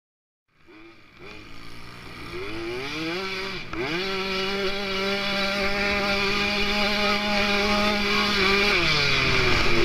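Small motocross bike engine heard from on board, revving hard: it comes in about half a second in and climbs in pitch, dips briefly and climbs again, holds a steady high buzz, then drops in pitch as the throttle eases near the end.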